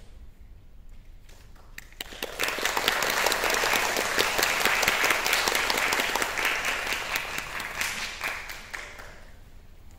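Audience applauding, a dense patter of hand claps that swells about two seconds in and fades away near the end.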